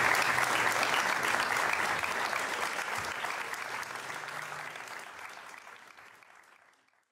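Live theatre audience applauding, the clapping dense at first and fading out steadily to nothing near the end.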